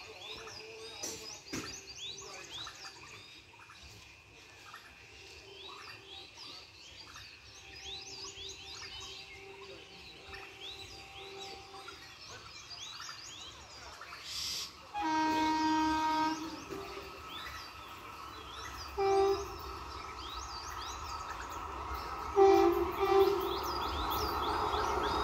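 Birds chirping, then the air horn of a WAG-7 electric locomotive: one long blast about 15 seconds in, a short blast about 19 seconds in and two short blasts near the end. The rumble of the approaching train grows steadily louder through the last part.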